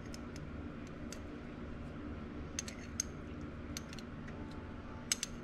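Light clicks and taps of a metal teaspoon against a small glass spice jar while ground mustard is scooped out, a few at a time, over a low steady hum.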